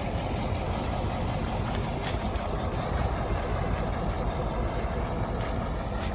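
Heavy diesel engine running steadily at idle, a low, even rumble.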